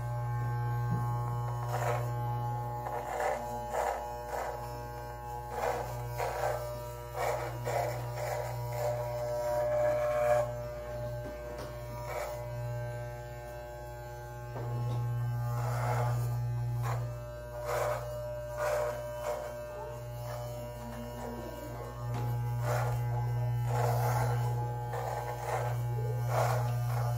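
Electric beard trimmer running with a steady low buzz that swells and fades several times, over instrumental background music.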